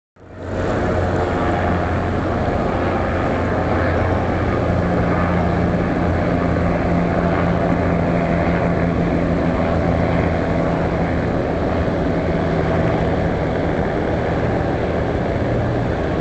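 Steady low drone of a large cruise ship's engines and propulsion, a deep hum under a wash of noise. A second, slightly higher hum joins about four seconds in.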